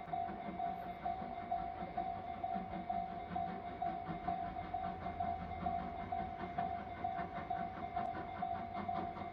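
Railway warning bell ringing steadily in quick repeated strikes, about three a second, the signal that a train is approaching.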